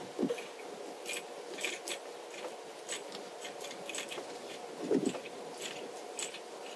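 Small irregular crunching and scraping as a steel eye bolt is pushed and twisted up through a hole drilled through the ceiling drywall and wood, with two soft thumps, one just after the start and one about five seconds in.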